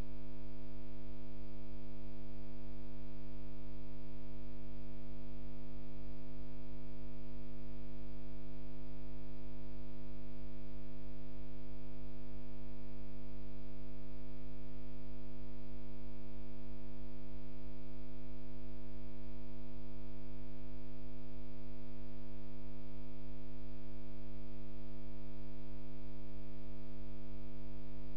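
Steady electrical hum with many overtones, unchanging in pitch and level throughout.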